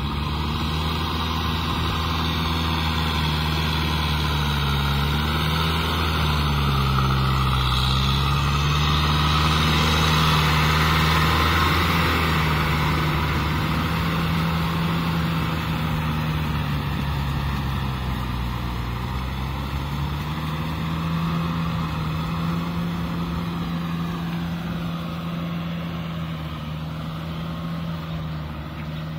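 Diesel farm tractor engine running steadily while it pulls a rotavator through a flooded rice paddy. The engine note dips twice under load. The sound is loudest about a third of the way in and fades as the tractor moves away.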